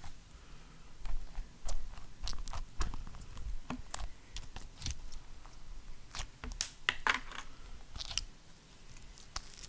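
Knife stabbed repeatedly into slime in a pot: irregular sharp clicks and soft wet thuds, roughly one or two a second, as a foley imitation of knife stabs into flesh.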